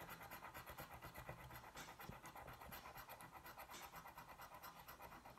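Faint, quick scraping of a scratch-card ticket's coating, about eight to ten strokes a second, barely above near silence.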